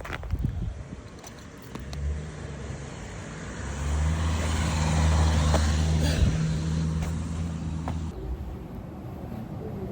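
A motor vehicle close by: a steady low engine hum with rushing road noise that builds to a peak about five or six seconds in, then cuts off suddenly about eight seconds in.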